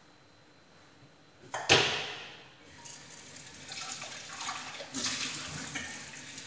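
Kitchen tap turned on about one and a half seconds in, gushing hard at first, then running steadily into a stainless steel pot in the sink, the sound shifting as the pot fills.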